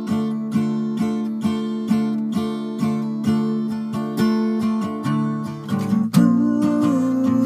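Acoustic guitar strummed in a steady rhythm of about two strokes a second on a held chord; about six seconds in the playing gets louder and fuller, with a chord change and sliding notes.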